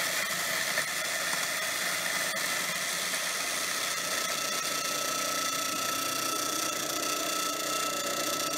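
Electric grinder running steadily as it mills grit to powder, a steady motor sound with a constant high whine.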